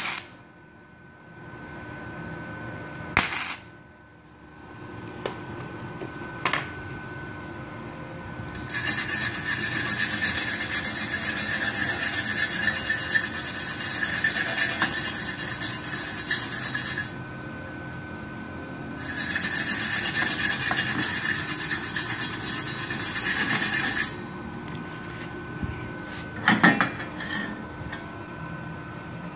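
Hand wire brush scrubbing a fresh gasless flux-core MIG weld on thin galvanized steel, cleaning off the slag: two long spells of rapid scratchy strokes, about eight seconds and then five seconds. A few short metallic knocks come before and after the brushing.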